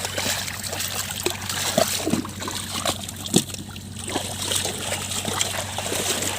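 Shallow water trickling and splashing, with short splashes throughout and a sharper one about three seconds in.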